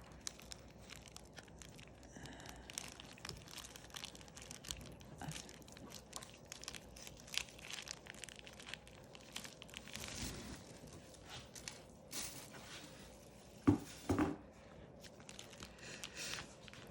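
Plastic colostomy pouch crinkling and rustling as it is handled, with many small faint clicks and two short bumps near the end.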